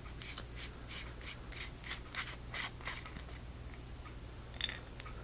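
Screw threads of an EagleTac MX25L4T flashlight being turned by hand, grating in short repeated strokes about three times a second, then stopping; a light click follows near the end.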